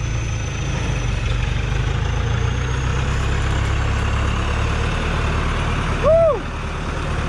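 Hoa Mai logging truck's diesel engine running steadily at low revs with the rear wheels in deep mud. A short shouted call rises and falls in pitch about six seconds in.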